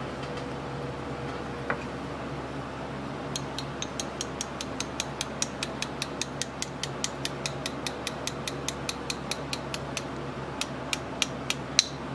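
Rapid, even run of light metallic clicks, about four or five a second, from small metal parts being worked by hand, ending in a few scattered louder clicks.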